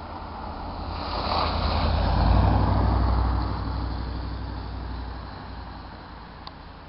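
A road vehicle driving past, its engine rumble and tyre noise building to a peak about two seconds in and then fading away.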